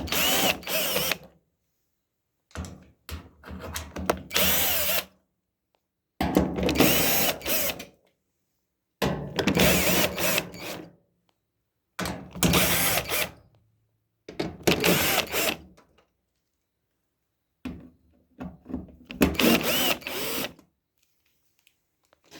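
Power drill-driver with a 1/4-inch socket unscrewing the 1/4-inch hex screws from a dryer's back panel, running in about seven short runs, its pitch rising and falling with the trigger, with pauses between screws.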